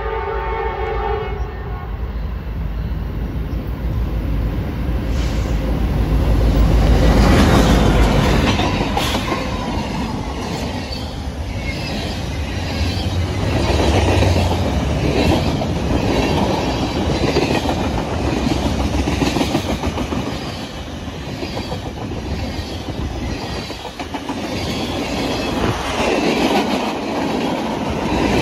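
Norfolk Southern freight train: a horn chord ends about a second in, then the diesel locomotives rumble past, loudest around seven seconds in. After them, covered hopper cars roll by with a steady rhythm of wheel clicks on the rails.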